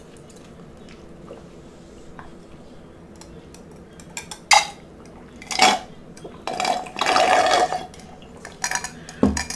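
Drinking ice water through a plastic straw: a few short sharp sips and clinks, then a longer noisy slurp of over a second, with a few small clicks near the end.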